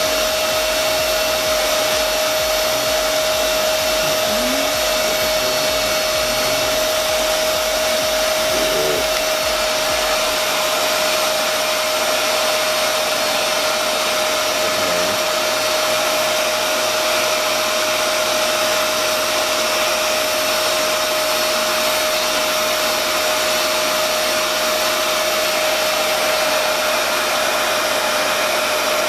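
Revair reverse-air hair dryer running on the warm setting with suction at 5, pulling a section of hair into its wand: a steady rush of air with a constant whine. A low flutter underneath dies away about ten seconds in.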